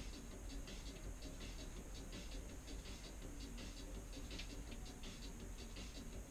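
Faint rustling and small taps of hands wiping a bicycle suspension fork with a rag.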